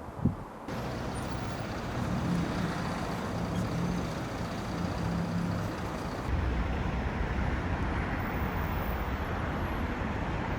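Street traffic noise: a steady roar of passing cars and heavier vehicles, with an engine hum in the middle. The sound changes abruptly twice, as if spliced from different street recordings.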